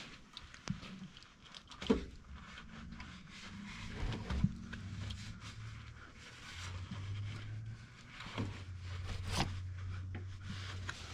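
Light scraping, rubbing and scattered metallic clicks and knocks of hand tools working in an engine's timing-cover opening while metal shavings are fished out of it. A low steady hum runs underneath from about halfway in.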